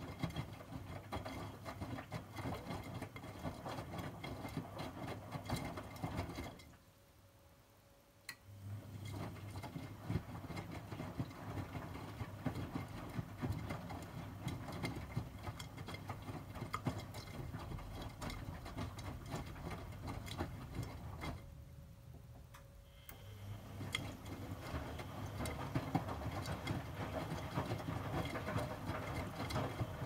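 Miele W2241 front-loading washing machine tumbling laundry and water in its drum during the wash phase. The drum stops twice for about two seconds, once about a quarter of the way in and once about three-quarters of the way in, as it pauses between turns in alternating directions. A faint hum carries on during the pauses.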